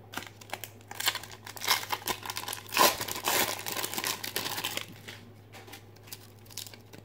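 Foil wrapper of a 1992 Fleer Ultra card pack crinkling as it is torn open, a dense crackle lasting about four seconds. A few faint clicks follow near the end.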